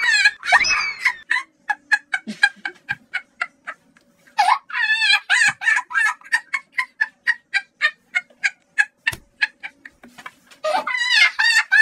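Poultry clucking: a fast run of short clucks, about five a second, broken by a longer wavering call about four and a half seconds in and again near the end.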